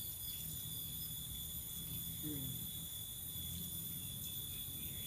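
Steady, high-pitched chorus of crickets or similar insects ringing without a break, over a low rumble.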